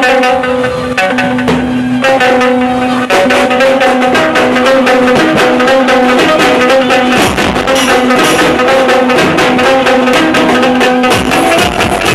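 Loud music blasting from stacked horn loudspeakers of a procession DJ sound system, with held instrumental notes and a fast, steady beat that comes in about three seconds in.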